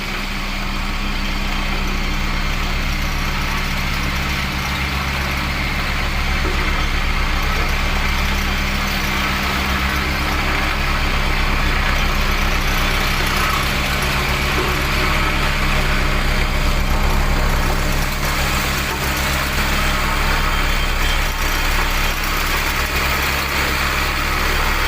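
Vibratory road roller running steadily with its drum vibrator on while compacting the road: a continuous engine drone with a fast, low pulsing underneath.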